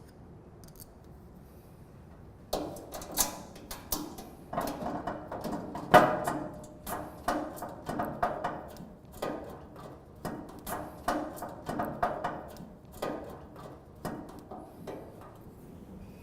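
Repeated metal clicks, clanks and scrapes with a slight ringing, starting about two and a half seconds in: bolts and washers being fitted from inside the hood of a gas barbecue to hold the side-burner shelf.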